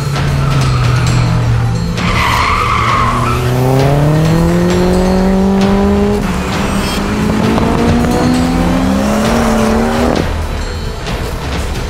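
Race car engine running hard and revving up through the gears, its pitch climbing twice, with a brief tyre squeal about two seconds in.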